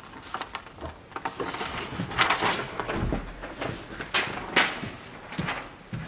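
Rustling and light knocks as a person handles a sheet of paper and gets up from a padded booth seat, irregular and loudest a little past two seconds in and again just past four seconds in.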